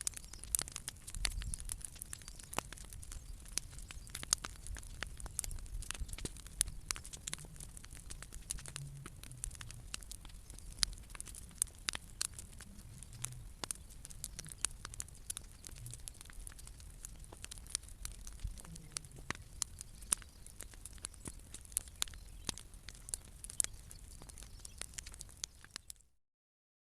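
Bonfire of old decking and branches burning, crackling with frequent sharp irregular pops and snaps over a low rumble. The sound cuts off suddenly near the end.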